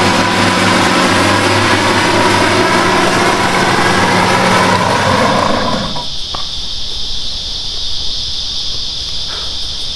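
Allett Liberty cylinder mower's engine running steadily, then stopping about six seconds in. Insects keep up a steady high drone after it.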